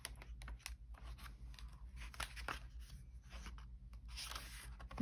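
Paper pages of a hardcover dot-grid diary being turned by hand: soft rustling with a string of light flicks, and a longer swish of a page a little after four seconds in.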